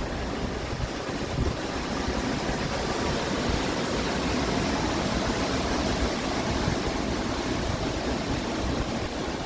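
Strong wind blowing steadily with a rushing noise, gusts buffeting the microphone and making a rough low rumble.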